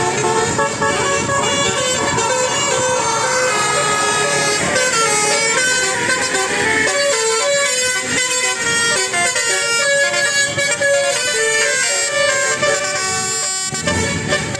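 Bus 'telolet basuri' musical horn playing a tune: several horn tones sounding together and stepping quickly from note to note, without a break.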